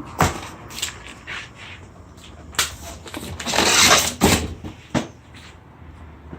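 Handling noise: a string of sharp knocks and clatters, with a longer rough scraping rustle a little past the middle.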